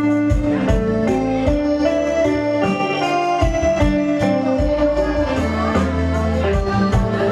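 Instrumental music led by electronic keyboard or organ tones over a steady beat.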